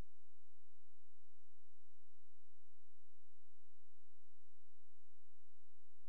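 A steady, unchanging electronic tone with a low hum beneath it and a faint high whine, with no breaks or clicks; no ball or cue sounds are heard.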